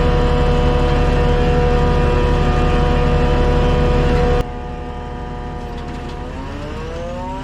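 Semi truck's diesel engine running steadily at a constant pitch; after an abrupt cut a little over halfway through, the engine is quieter and its pitch climbs as it accelerates.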